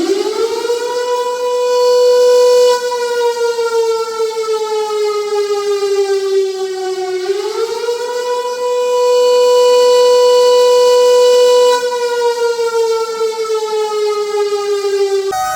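Air raid siren wailing. Its single tone winds up, holds, and slowly sags, then climbs back and holds again before falling once more. A different siren recording cuts in just before the end.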